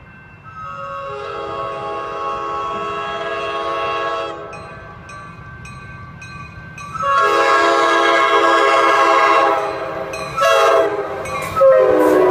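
Coaster commuter train's multi-chime air horn sounding the grade-crossing pattern: two long blasts, a short one, and a final long one that begins as the train draws alongside. The horn grows louder as the train approaches, and its pitch drops slightly on the last blast as the train passes.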